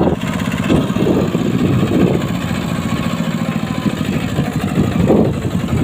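Bulldozer engine running steadily.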